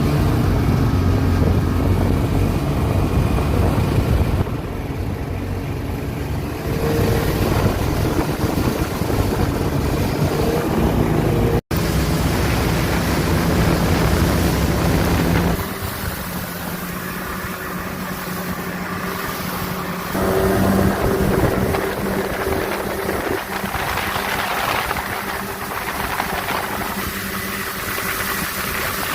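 A vehicle engine running under way, its pitch rising and falling in the first half. After about 15 seconds it goes steadier and lighter, with wind buffeting the microphone.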